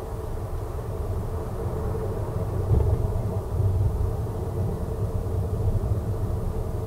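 Steady low rumble of a car travelling at motorway speed: tyre and road noise mixed with engine drone, growing a little louder a few seconds in.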